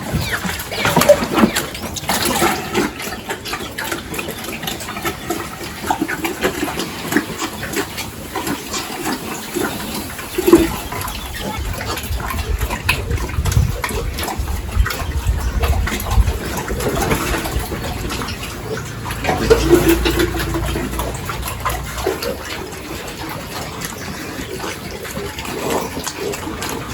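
Water running steadily, with pigs grunting now and then.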